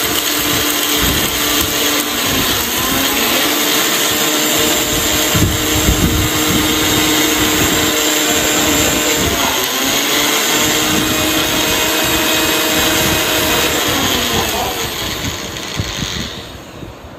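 Sujata Dynamix 900-watt mixer grinder running in its small dry-grinding jar, pulverising hard whole spices (cardamom pods in their husks, nutmeg, mace) into a fine powder. A loud steady motor whine sits over the noise of the grinding, with a brief dip in pitch about halfway through, and the motor winds down near the end as it is switched off.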